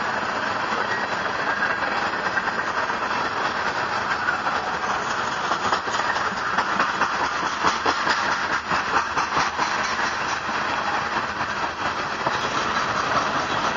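Steady road and engine noise of a moving car, heard from inside the cabin, with a long freight train of hopper cars rolling on the parallel track.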